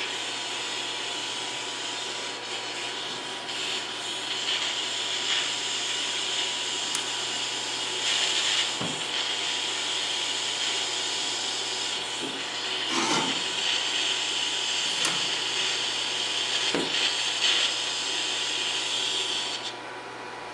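Steady hiss of a scratch-start DC TIG arc with argon shielding gas flowing through the torch, tack welding 10-gauge stainless steel at about 90 amps. A few light knocks are heard, and the hiss stops suddenly near the end.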